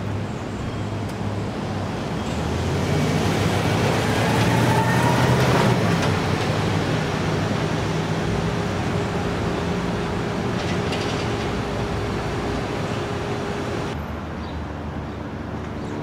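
Street traffic: a passing motor vehicle swells to a peak about five seconds in and fades, over a steady background of engine hum and road noise. The sound changes abruptly near the end to quieter traffic.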